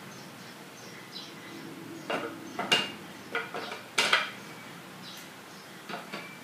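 Loose wooden slats clacking against each other and against the wooden tray frame as they are handled and set into place: a cluster of sharp knocks in the middle and two more near the end.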